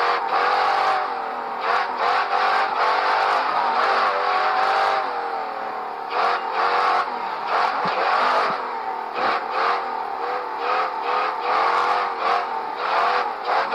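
Ultra4 race car engine revving up and falling back over and over as the car accelerates and lifts off around the course, with frequent short knocks.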